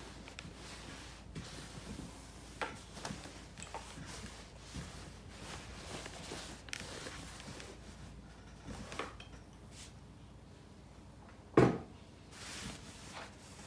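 Steam iron pressing and sliding over denim on an ironing board: scattered light knocks and fabric rustles, with one louder knock near the end, followed by a hand smoothing the fabric.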